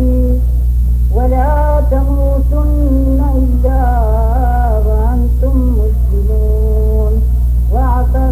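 A single voice chanting a melodic recitation in phrases, holding notes and turning them with small pitch glides, with short pauses between phrases, over a steady low hum.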